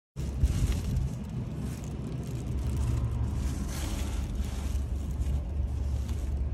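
Steady low rumble of a car running nearby, with a plastic takeout bag and an insulated delivery bag rustling as they are handled and packed.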